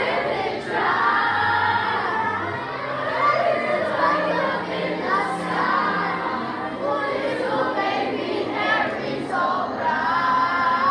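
A group of children singing a song together in unison, over held low accompaniment notes that change every second or two.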